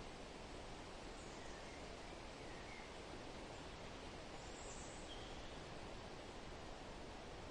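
Steady wind rustling through forest leaves, with a few brief, faint bird chirps scattered through it.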